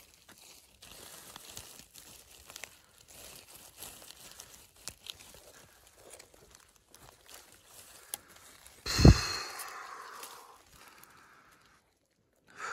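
Crackling and rustling of dry leaf litter and twigs, with scattered faint crunches and clicks from footsteps and handling on the forest floor. About nine seconds in comes one loud thump with a rustle that fades over a second or so.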